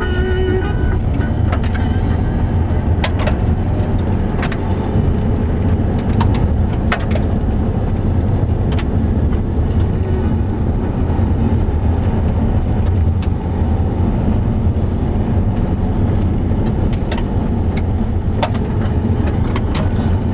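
Mitsubishi SUV driving on a gravel track, heard from inside the cabin: a steady low rumble of engine and tyres, with scattered sharp clicks and rattles.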